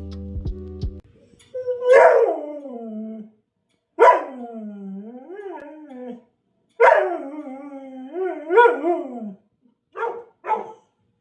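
A dog howling: three long, wavering calls that fall in pitch, then short yelps near the end. Background music cuts out about a second in.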